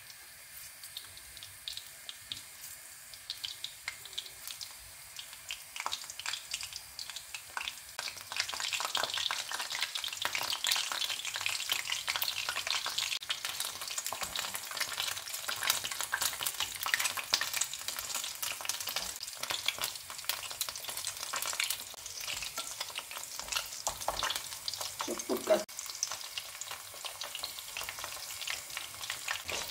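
Batter-coated salt cod frying in hot oil in a pan: a dense crackling sizzle that grows louder about eight seconds in and keeps up.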